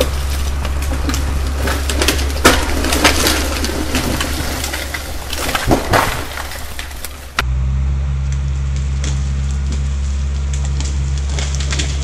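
A tree coming down through neighbouring trees: a long run of branches cracking and snapping, with the sharpest cracks a third of the way in and again about halfway, over a steady diesel engine. The cracking cuts off suddenly about two-thirds of the way in, leaving only the diesel engine running steadily.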